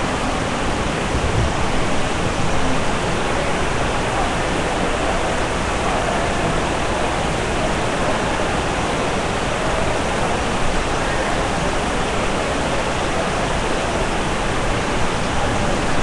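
Heavy monsoon rain falling, a steady and loud rush of noise.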